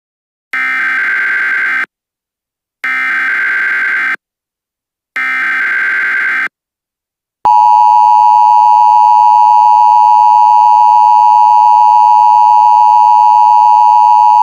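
Emergency Alert System SAME header: three bursts of fast digital data tones, each a little over a second long, the standard coded preamble that opens an alert. About seven seconds in, a loud, steady EAS attention tone starts suddenly and holds, signalling that a voice announcement follows.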